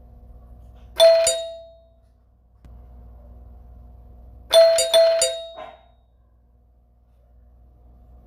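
Doorbell ringing: one ring about a second in, then two more rings in quick succession about four and a half seconds in, each dying away within a second, over a faint steady hum.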